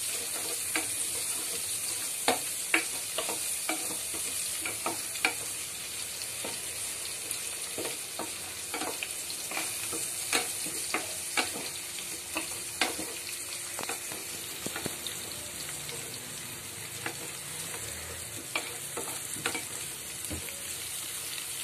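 Chopped onions sizzling in hot oil in an enamel pot, with a steady hiss. A wooden spatula stirs them, clicking and knocking against the pot now and then, more often in the first two-thirds.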